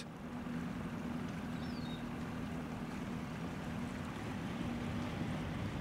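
A boat's motor running with a steady low hum, with the hiss of water around the hull.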